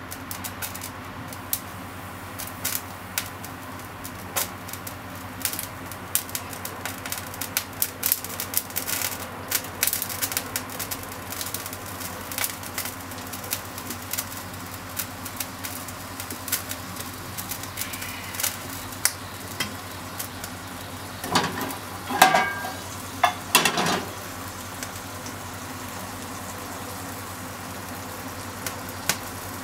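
Droplets on a heating non-stick frying pan crackling and spitting in scattered small pops as they boil off, over a steady low hum. A louder cluster of pops comes about three quarters of the way through.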